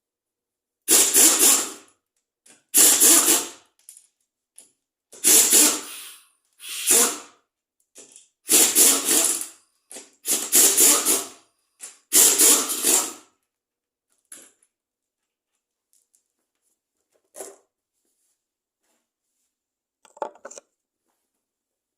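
A power tool run in about seven short bursts, each around a second long, followed by a few faint clicks and knocks.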